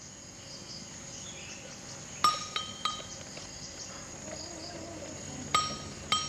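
Outdoor ambience with a steady high insect drone, broken by two sets of three bright clinks of a small struck metal or glass object, each ringing briefly at the same pitches.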